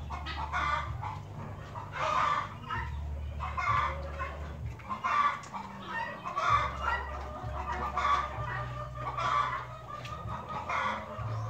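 Chickens clucking in short repeated calls, about one every half second to a second, over a low steady hum.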